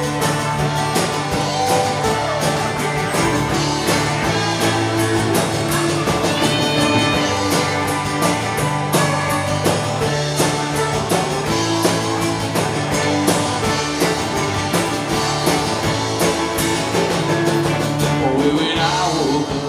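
Live folk-rock band playing an instrumental passage: fiddle over electric and acoustic guitars, upright bass and drums keeping a steady beat.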